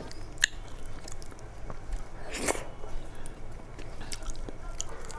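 Close-miked eating sounds: fingers mixing soft khichdi on a steel plate, then chewing and mouth clicks as a handful is eaten. Scattered sharp clicks run throughout, with one louder noise about halfway through.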